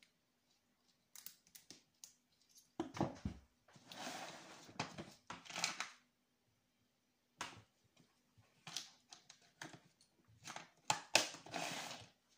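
Tools and small metal parts of a model nitro engine handled on a cloth-covered table: irregular clicks, clinks and rustling, the loudest about eleven seconds in.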